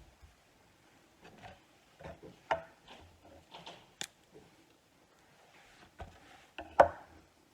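Spoon scooping avocado and knocking against the skin and cutting board: a run of irregular clicks and knocks, the loudest about two and a half seconds in and near the end.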